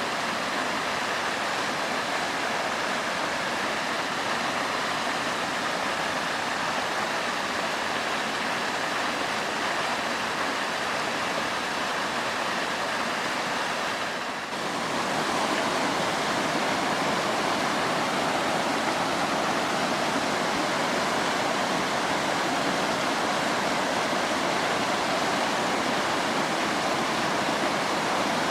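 Waterfall pouring, a steady rush of falling water. About halfway through it dips briefly and comes back slightly louder.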